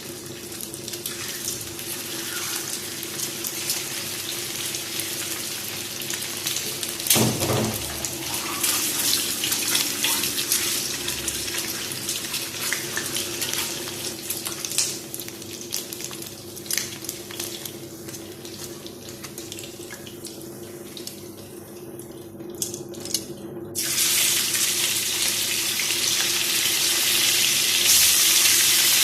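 Water running from a kitchen tap into a sink, with splashing and small knocks. Near the end a louder, steadier hiss cuts in suddenly.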